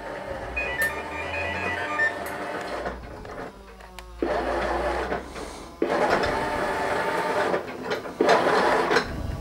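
Tomy OmniBot toy robot's electric drive motors and gearing whirring as it drives and turns, stopping and starting several times and louder from about four seconds in.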